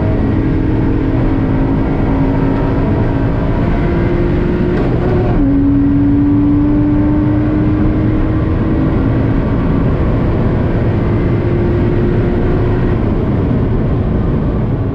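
Lotus Exige 350 Sport's supercharged 3.5-litre V6 heard from inside the cabin, accelerating. The engine note climbs slowly, drops sharply with an upshift about five seconds in, then climbs slowly again in the higher gear over tyre and road noise.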